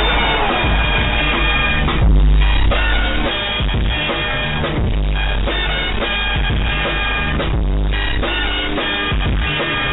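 Rock music with drums, bass and guitar played loud down a phone line, its sound cut thin at the top. It stops abruptly just after the end.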